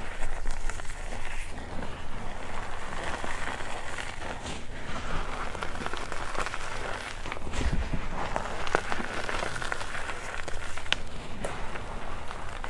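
Hands squeezing and crumbling dry reformed gym chalk: a continuous crunchy crackle of small lumps breaking and powder falling back onto the heap, with a few sharper clicks in the second half.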